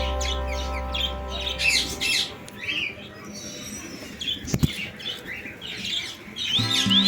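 Parrots chirping and squawking in short, repeated calls, with background music that fades out about two seconds in and returns near the end. A single sharp click about halfway through.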